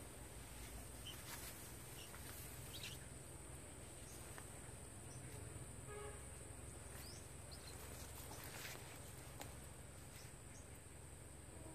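Faint outdoor ambience: insects droning steadily at a high pitch, with a few short, faint bird chirps and ticks scattered through it.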